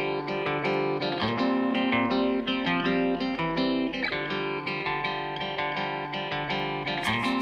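Background music played on guitar, with plucked notes and chords changing about once a second.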